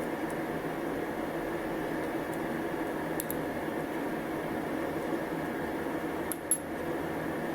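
Light metallic clicks of small parts being handled: a couple about three seconds in and a louder pair about six and a half seconds in. A steady hum runs underneath.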